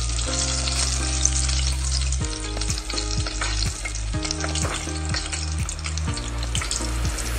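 Breaded chicken pieces deep-frying in hot oil in a pot, a steady crackling sizzle.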